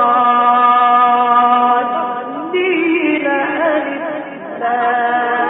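Male Quran reciter chanting in the melodic mujawwad style, holding long drawn-out notes. About halfway through a new, higher phrase with ornamented turns begins, and near the end it settles into another long held note.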